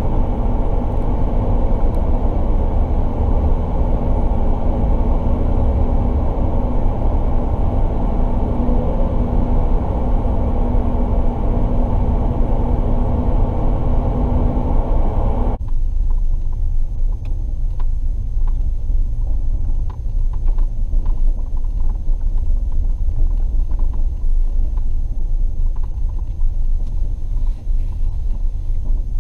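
Ram pickup truck heard from inside the cab while driving: steady engine and road noise at road speed with a faint hum. About halfway through it changes abruptly to a lower, duller rumble with scattered light ticks, as the truck rolls along a dirt track by a field.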